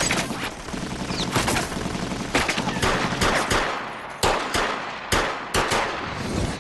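Heavy gunfire from many guns at once, handguns among them, in a dense, overlapping barrage. After about four seconds it thins to single sharp shots a fraction of a second apart, then stops abruptly.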